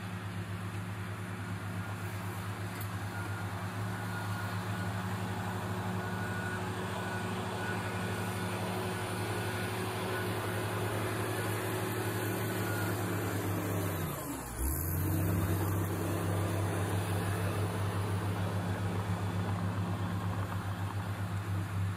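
Diesel engines of a crawler bulldozer and a hydraulic excavator running steadily as they push and dig soil. About two-thirds of the way through, the engine note dips sharply in pitch and climbs back, then runs a little louder.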